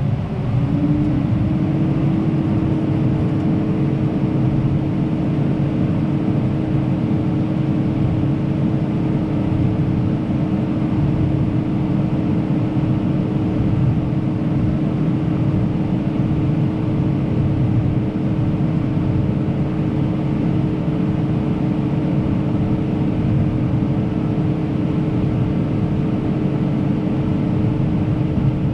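Tractor engine running under steady load with the PTO engaged, driving the grain cart's unloading auger. A tone rises and settles at a steady pitch about a second in, then the drone holds even.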